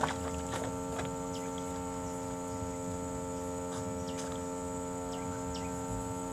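A steady droning hum made of several fixed tones that never change in pitch. Over it come a few short, high, falling chirps and a couple of faint clicks near the start.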